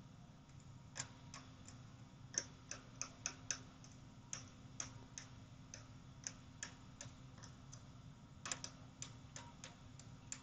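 Faint, irregular small clicks and scratches as a scraping tool picks and scrapes black coating and a sticker off an iPad Air 2 logic board, over a low steady hum.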